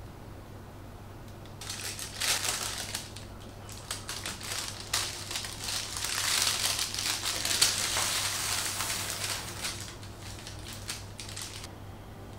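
Baking parchment crinkling and rustling as hands peel it away from a crusty baked loaf, starting about two seconds in and stopping shortly before the end.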